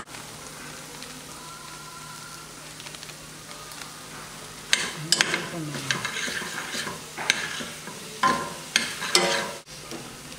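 A metal spoon stirs a milk-and-brown-sugar laddoo mixture cooking in a steel pot, over a steady sizzle. From about halfway through come repeated scraping strokes, as the spoon turns over the mixture, now cooked down to a dry, crumbly mass, against the pot.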